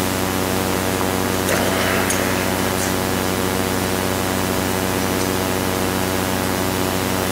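Steady hiss with a low, buzzing hum, the constant background noise of the room and sound system. A faint, brief sound comes about one and a half seconds in.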